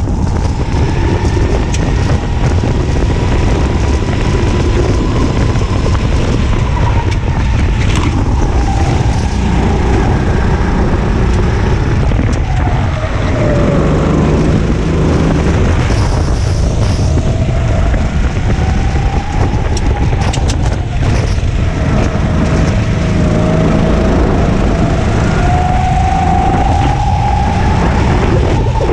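Onboard sound of a racing go-kart's engine, its pitch climbing along the straights and falling away as the kart slows for corners, over a heavy low rumble. The engine note drops sharply about halfway through and climbs again near the end.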